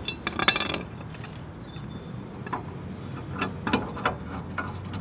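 Small metal clicks and clinks of a kickstand pivot pin and bracket being handled and worked into the kickstand mount of a motorcycle: a quick run of clicks in the first second, then scattered single taps.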